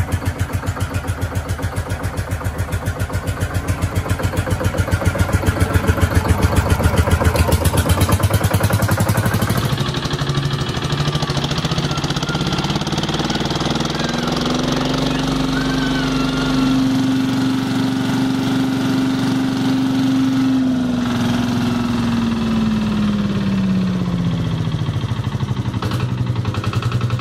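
GM Detroit Diesel 1-71 single-cylinder two-stroke diesel running, its rapid firing pulses coming evenly. After a cut about ten seconds in, another 1-71 runs with a note that rises, holds for several seconds and then falls back.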